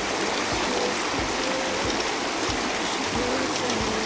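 River water rushing over a shallow, rocky riffle: a steady wash.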